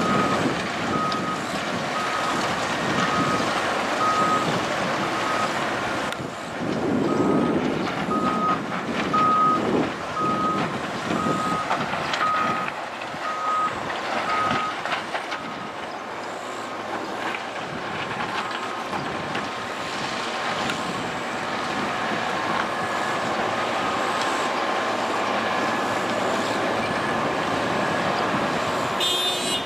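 A vehicle's reversing alarm beeping about once a second, one steady tone per beep, over steady background noise. The beeping stops about halfway through.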